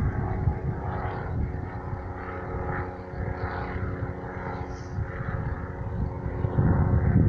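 Propeller engine of a VIS light airplane running steadily, with a low, uneven rumble that eases off in the middle and comes back up near the end.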